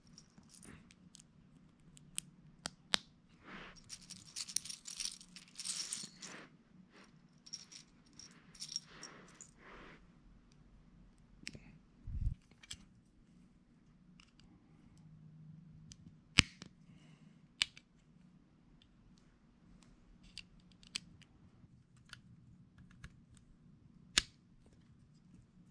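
Plastic LEGO bricks clicking sharply as they are pressed together, with loose pieces rattling as they are sorted through for several seconds early on. One dull thump comes about midway.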